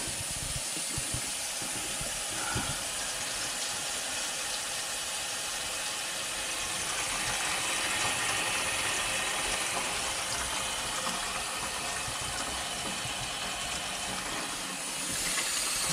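Kitchen tap running steadily into a stainless-steel sink, filling the basin with the stopper in: a water test of a newly installed drain strainer basket for leaks.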